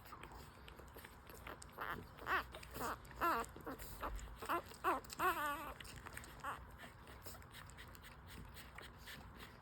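Five-day-old French Bulldog puppies squealing and whimpering while nursing: a run of about eight short, high cries, the longest one wavering.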